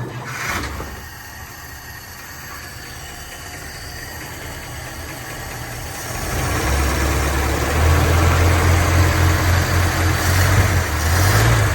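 1962 Dodge D200 pickup's engine just fired up and running, growing louder and deeper about six seconds in, with a brief rise in revs near the end.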